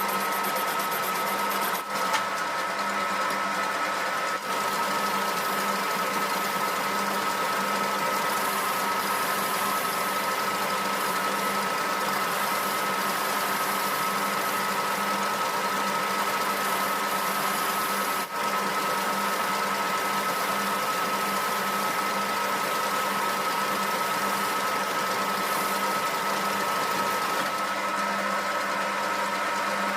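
Homemade metal lathe running steadily during a thread-cutting pass, its motor and drive giving a constant hum with a high whine. There are a few momentary dips in level.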